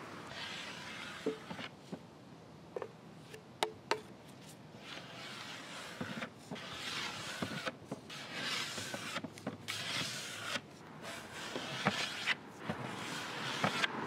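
A scraper pushed in repeated strokes across a teak veneer tabletop, lifting off softened old finish and paint stripper. There are a few sharp clicks in the first few seconds, and the strokes come longer and closer together later on.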